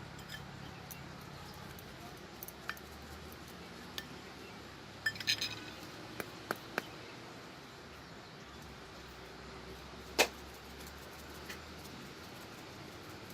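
Scattered light clinks and knocks of hard objects, such as kitchen utensils or stone, being handled. There is a small cluster about five seconds in and a single louder clink about ten seconds in, over a faint low steady hum.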